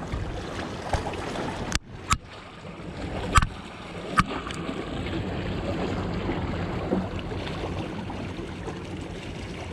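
Steady lapping of water around a small fishing boat, with four sharp knocks or clicks in the first half, the loudest about three and a half seconds in.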